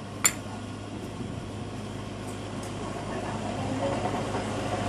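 A single sharp metallic click about a quarter second in, from small metal parts of a disassembled motorcycle starter motor being handled, over a steady low hum.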